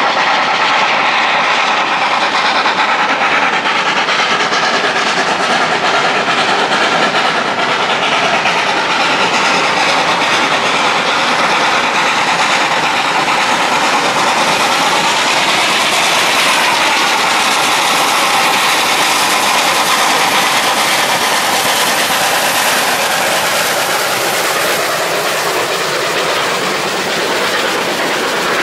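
Pannier tank steam locomotives working a passenger train up the Lickey Incline, the continuous noise of the train passing, with a sweep in pitch about halfway through as it goes by.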